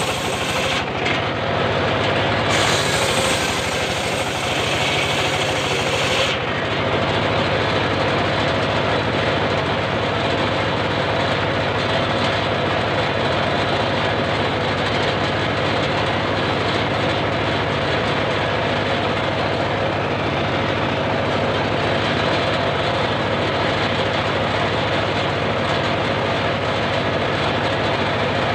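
Homemade circular sawmill running steadily, a dense mechanical drone with a low engine hum. A bright high hiss cuts off abruptly about six seconds in, and the drone carries on unchanged.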